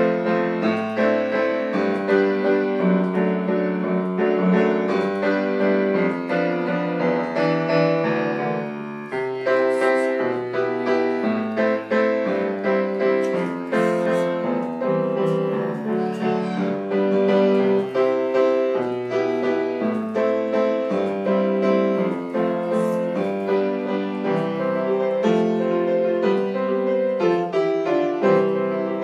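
Piano playing without a break: full chords over a bass line that moves to a new low note about every second.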